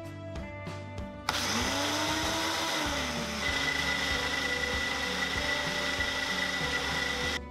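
Countertop blender motor switching on about a second in and running steadily as it purées a thick avocado sauce in the jar, then cutting off suddenly just before the end.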